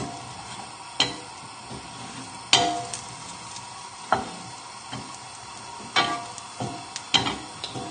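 Wooden spoon stirring chorizo, shallots and garlic around a non-stick frying pan, knocking and scraping against the pan at irregular intervals, about once a second. Under it is a faint steady sizzle as the pan, started cold, just begins to heat up.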